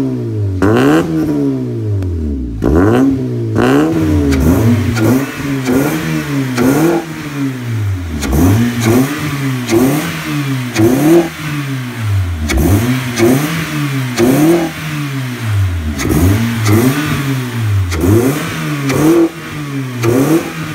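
A 2010 Honda Civic's four-cylinder i-VTEC engine is blipped on the throttle over and over, about once a second. Each rev rises and falls in pitch, heard through an aftermarket full exhaust and a K&N open-cone air intake.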